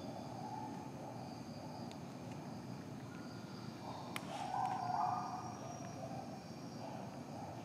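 Outdoor ambient noise with faint high insect-like chirping that comes and goes. About four seconds in there is a sharp click, followed by a brief louder sound lasting under a second.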